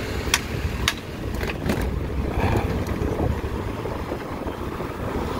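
Wind rumbling on the microphone and road noise while riding an electric motorcycle, with a few sharp clicks in the first two seconds.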